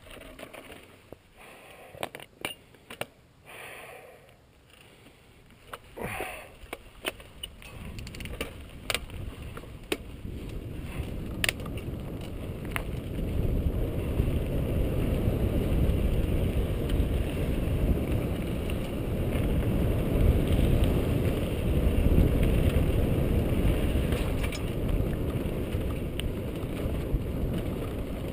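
Mountain bike rolling on a dirt singletrack: scattered clicks and rattles from the bike as it gets moving, then a steady low rush of wind on the microphone and tyre noise that grows louder from about eight seconds in as speed builds.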